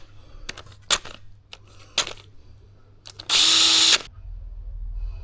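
A handheld power tool of the drill/driver type runs in one short burst about three seconds in, after a series of sharp metallic clicks from parts and tools being handled. A low rumble comes in near the end.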